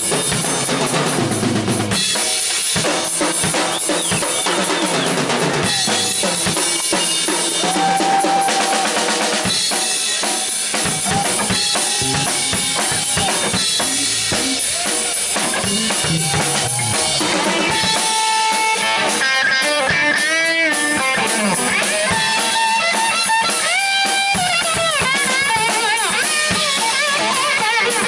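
Live rock band playing an instrumental passage, with the drum kit (bass drum, snare and cymbals) to the fore under bass guitar. In the second half, electric guitar notes held and bent over the drums.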